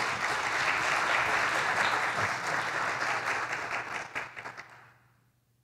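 Audience applauding; the clapping fades out about four to five seconds in.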